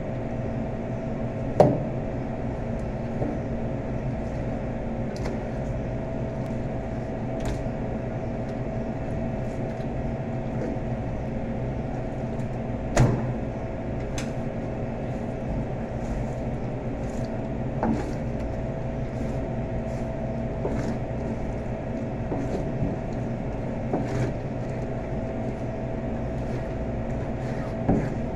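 Steady hum of commercial kitchen machinery, with knife and meat work on a plastic cutting board over it: a few sharp knocks, the loudest about a second and a half in and another near the middle, and faint light taps and ticks in between.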